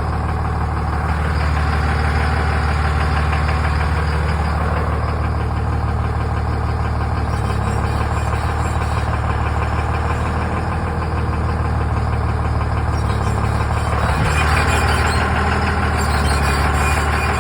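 A 24-valve 5.9 L Cummins diesel running steadily with diesel clatter. About 14 seconds in, a harsher, higher-pitched noise joins it and carries on to the end.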